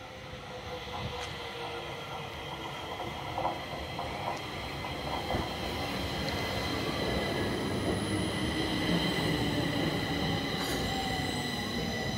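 Stockholm metro train pulling into the station and slowing down. A falling whine and steady high-pitched tones sit over a rumble of wheels on rails, and it all grows louder as the train draws alongside.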